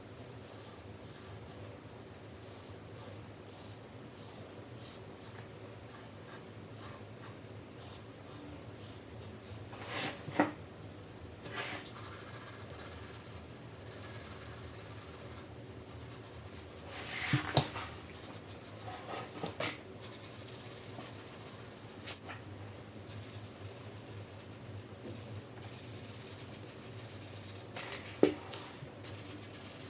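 4B graphite pencil shading on paper in runs of scratchy strokes, short at first and longer later. Three sharp clicks stand out, about a third, halfway and near the end.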